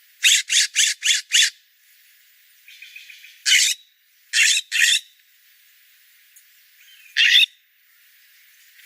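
Wild bird calling: five short, loud calls in quick succession, then a single call, a quick pair, and one more near the end.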